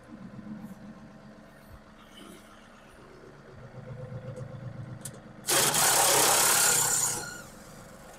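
John Deere compact tractor's diesel engine idling with a steady low hum that grows a little louder partway through. Over it, a loud rushing hiss starts about five and a half seconds in and lasts about a second and a half.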